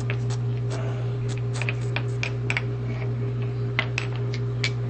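Shoes tapping on a hard floor in quick, irregular clicks, a child imitating a tap dancer. A steady low hum runs underneath.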